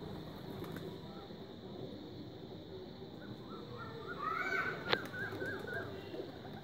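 Outdoor background hum with a short run of bird calls, quick repeated chirping notes, a little past halfway, and a single sharp click among them.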